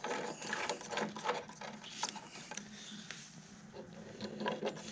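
Irregular light metal clicks and rattles of a 4-inch bolt and washer being fitted through a drilled hole in a wooden table leg and tightened.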